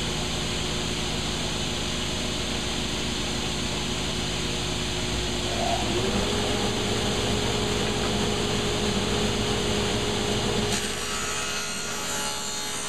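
Table saw running steadily while thin edging strips are ripped on it, with a change in its sound about two seconds before the end as the next piece is fed through.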